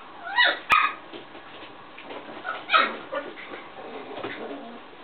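Puppy giving short, high yips and whimpers: a pair of calls in the first second and another about three seconds in. A sharp click comes just under a second in.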